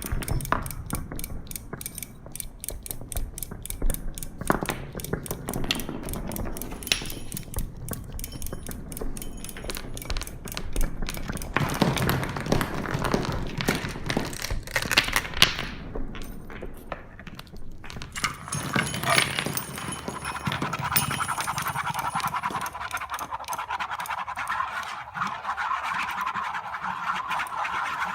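Experimental noise made with kinetic objects: layered, rapid percussive clicking and rattling. About two-thirds of the way through it gives way to a dense, steady mid-pitched rattling buzz.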